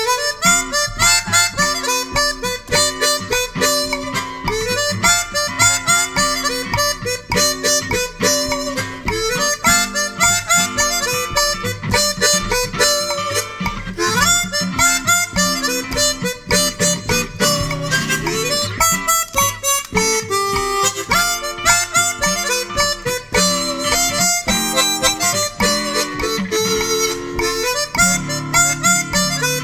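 Harmonica playing a blues, a steady stream of short notes.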